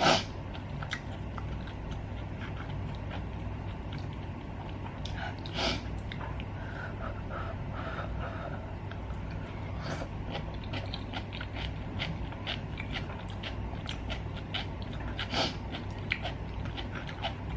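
Close-miked chewing of chewy stir-fried rice cakes: many soft, wet mouth clicks and smacks, with a few sharper clicks standing out, over a steady low hum.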